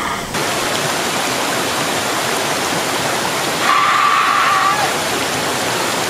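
Waterfall rushing steadily, with one long held scream from a person over it, starting about two-thirds of the way in and lasting about a second.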